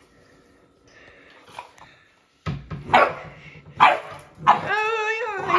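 Dogs barking in rough play: quiet at first, then from about halfway a few sharp barks, ending in a longer wavering cry that lasts about a second.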